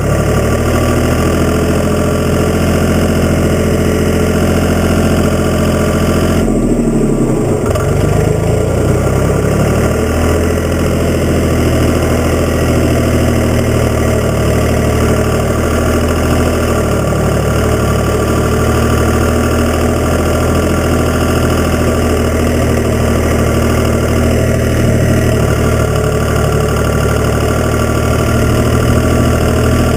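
Case 385 diesel tractor engine running steadily, with a brief dip and recovery in engine speed about seven seconds in.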